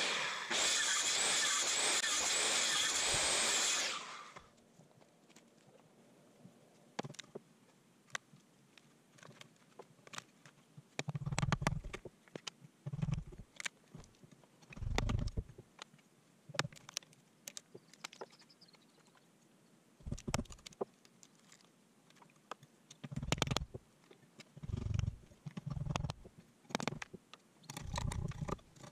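A power tool runs steadily for about four seconds and stops abruptly. Then come scattered sharp clicks and irregular low thumps of wood and tools being handled.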